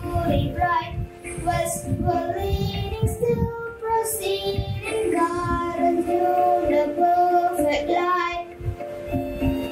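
A young girl singing solo, with long held notes.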